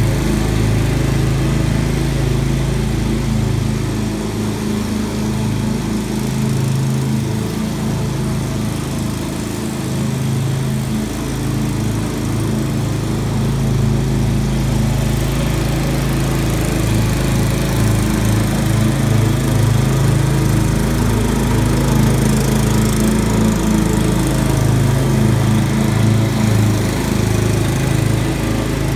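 Walk-behind commercial lawn mower's engine running steadily as it mows tall grass, a little quieter in the middle as it moves off and louder again as it comes back past near the end.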